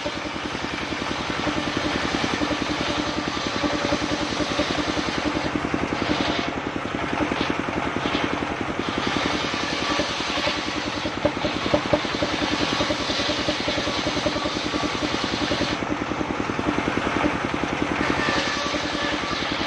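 Engine of a vehicle-mounted circular sawmill running steadily with a fast, even pulsing beat, driving the spinning circular saw blade as mahogany boards are worked on its table. A couple of brief knocks stand out about twelve seconds in.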